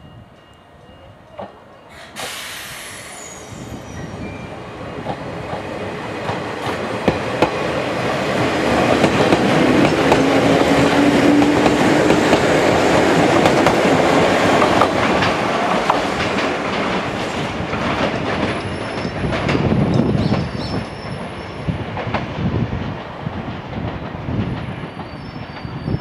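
Izu-Hakone Railway 1300 series electric train (ex-Seibu New 101 series) pulling out and running past close by. A short hiss about two seconds in, then motor and wheel-on-rail noise building to a loud pass in the middle, easing off later with thin wheel squeal and rail-joint clicks.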